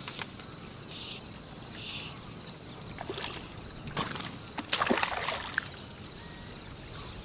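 Shallow water splashing as a hooked redfish thrashes at the surface beside the angler's legs, with the loudest splashes about four and five seconds in. A steady high-pitched insect drone runs underneath.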